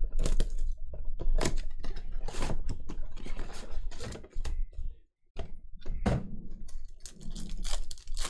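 Trading card pack wrapper crinkling and tearing as it is peeled open, then the stack of cards rustling and sliding in the hands: a dense string of sharp crackles with a short pause about five seconds in.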